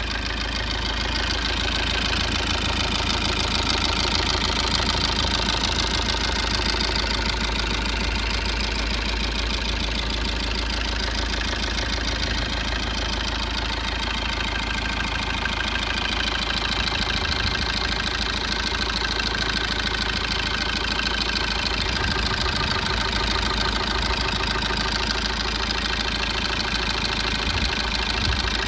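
Maruti Suzuki Ertiga engine idling steadily on its first run after a rebuild of its seized crankshaft.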